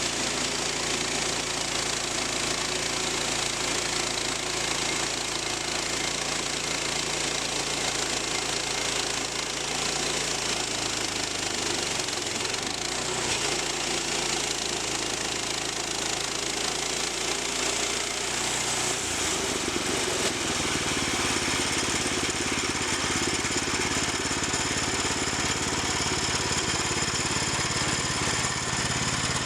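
Small engine of a sawmill running steadily under load. Its low hum changes pitch about two-thirds of the way through.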